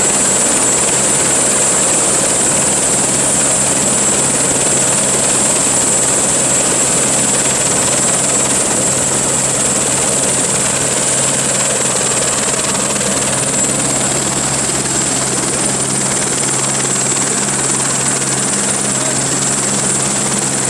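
Single-engine turbine helicopter running on the ground with its rotor turning: a steady high turbine whine over a low, even rotor hum, easing slightly near the end.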